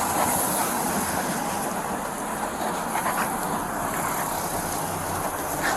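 Steady rushing noise of road traffic at the roadside, with no single event standing out, and a brief faint click near the end.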